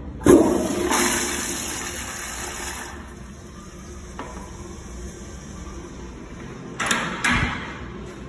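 Wellworth tank toilet flushing: a sudden loud rush of water about a third of a second in, fading over a few seconds into the quieter sound of the bowl and tank refilling. Two short knocks near the end.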